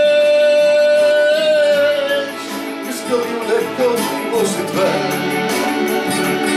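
Male voice singing over strummed acoustic guitar, holding one long note for about the first two seconds, then short sliding vocal phrases as the guitar strumming continues.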